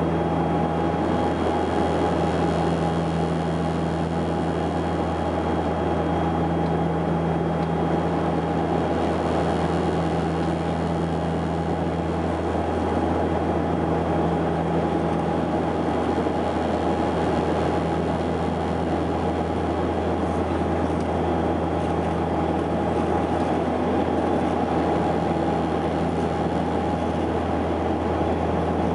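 Cabin noise of a Saab 340B's twin General Electric CT7-9B turboprops in flight: a steady low drone with a constant higher tone over rushing air.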